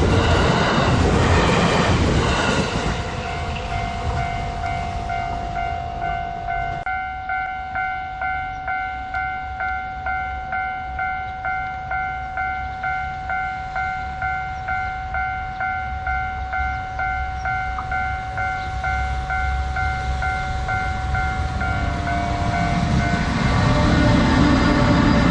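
A train rolling over a level crossing, its wheels on the rails filling the first couple of seconds. Then the crossing's electronic warning bell rings in an even rhythm, a little under two strikes a second, over a steady tone. Near the end the rumble of another approaching train rises again.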